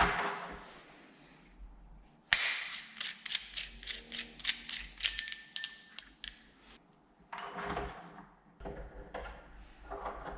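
Small metal door-handle bolts and screws clinking and rattling as they are handled, with sharp clicks and brief high metallic ringing for about four seconds, then a few softer knocks.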